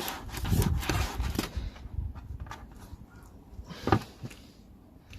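Knife sawing and scraping through a sea bass's flesh and bone near the head, with rasping strokes for the first second and a half, then quieter scrapes and a single sharp knock about four seconds in.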